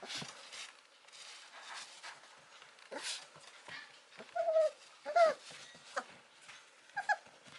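Mame shiba puppy giving a few short, falling whines about four to five seconds in and once more briefly near the end, with scattered light clicks and scuffs between them.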